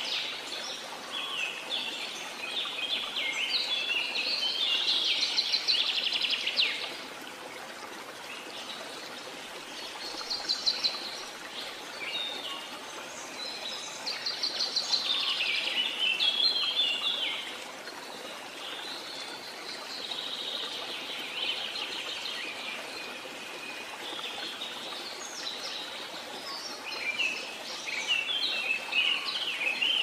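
Songbirds singing in repeated phrases of quick chirps and trills every few seconds, over a steady hiss of running water.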